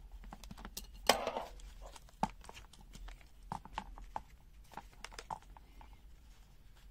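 Scattered light clicks and knocks of a plastic digital multimeter being handled and worked out of its rubber holster. The loudest knock comes about a second in, with a brief scrape after it.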